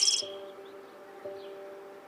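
Soft background music with sustained, held chords, with a bird's chirping call trailing off in the first half-second.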